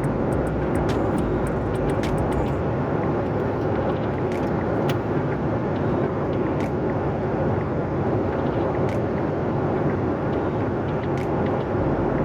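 Steady cabin noise aboard a Boeing 737-800 airliner: a constant rumble and rushing hiss of engines and airflow, with scattered faint clicks.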